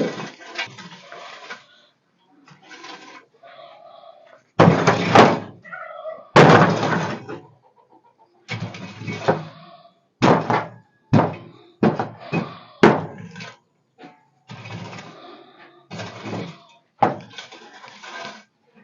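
A series of irregular knocks and thuds, with two louder bangs about five and six and a half seconds in and a quick run of sharp knocks a few seconds later.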